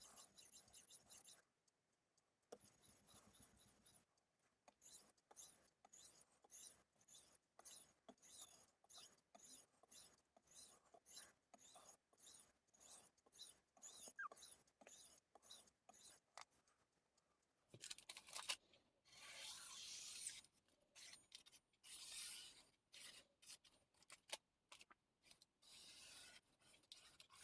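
Steel knife blade stroked back and forth on a Suehiro Debado S whetstone: faint rhythmic scraping at about two strokes a second, turning into longer, louder strokes about two-thirds of the way through.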